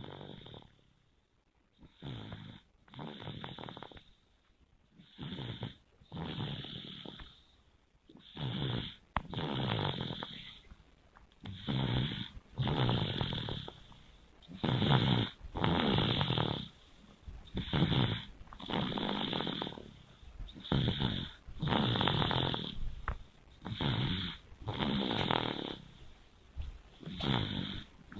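A young child snoring in sleep: a short snore followed by a longer one, repeating about every three seconds, louder after the first few breaths.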